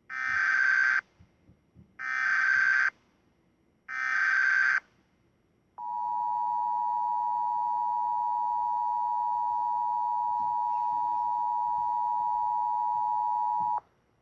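Emergency Alert System SAME header: three short bursts of warbling data tones about two seconds apart, then the two-tone EAS attention signal held steady for about eight seconds before cutting off suddenly. This is the alert that introduces an emergency broadcast message.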